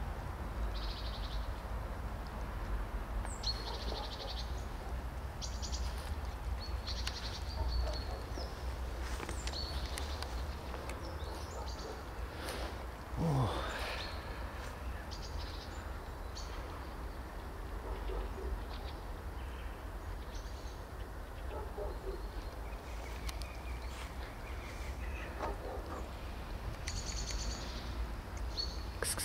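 Outdoor ambience: small birds chirp now and then over a steady low rumble, with one short rising sound about halfway through.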